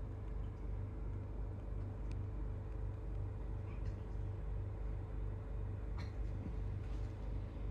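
Alaskan Malamute hiccuping: a few faint, short hiccup clicks roughly two seconds apart, the clearest about six seconds in, over a steady low hum.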